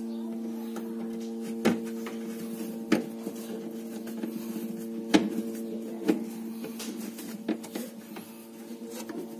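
Sharp clicks and knocks of refrigerator parts and screws being handled during reassembly, a few seconds apart, over a steady hum.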